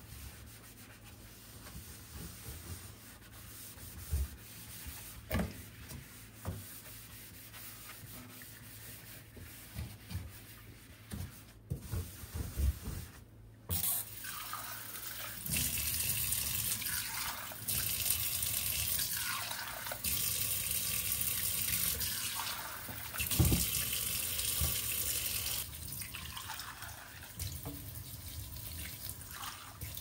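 A few light knocks and clicks of cleaning work, then, about halfway through, water running from a tap in several spells.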